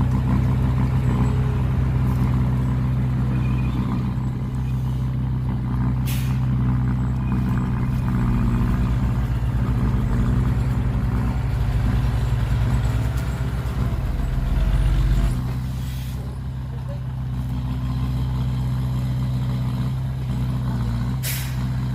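Heavy truck diesel engine running steadily. There are three short air hisses like air-brake releases, about six, sixteen and twenty-one seconds in. The engine note drops off about fifteen seconds in.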